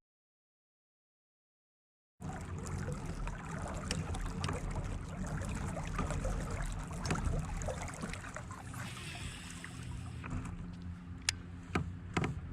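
About two seconds of dead silence, then water lapping and trickling against a fishing kayak, with a few light knocks near the end.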